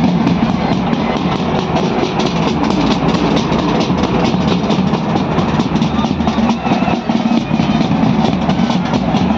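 Loud Punjabi bhangra music with a steady, driving drum beat.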